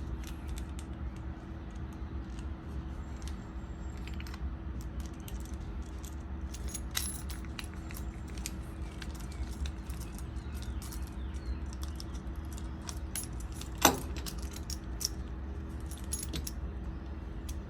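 Light metallic clicks and clinks from small metal dog-collar fittings (screw posts and a D ring) being handled and fitted together, with one sharper click about three-quarters of the way through.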